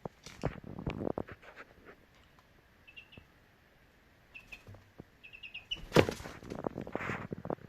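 A 13-day-old chick peeping in short high cheeps, a few single ones and then a quick run of four or five, among scuffling and light knocks; a sharp knock about six seconds in is the loudest sound.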